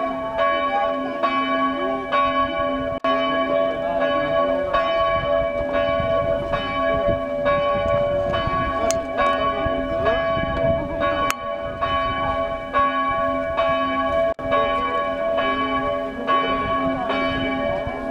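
Church bells ringing in an even, steady stroke about every half second, each stroke ringing on into the next. Two sharp clicks sound briefly partway through.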